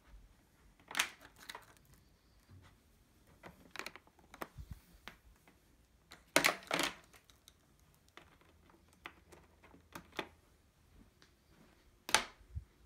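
Scattered clicks, knocks and brief rustles of things being handled, with no motor running; the loudest come about a second in, around six and a half seconds, and near the end.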